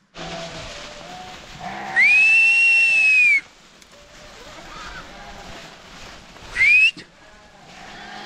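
A shepherd whistling to his flock: one long held whistle about two seconds in, then a short rising whistle near the end. Quieter sheep and goat bleating runs beneath.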